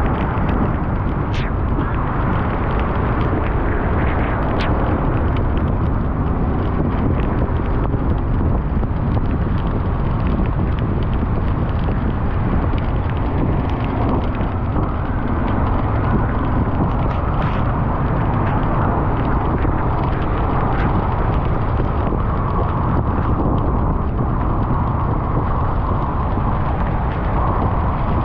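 Steady car driving noise, engine and tyres, heavy and low, with a few faint clicks and knocks.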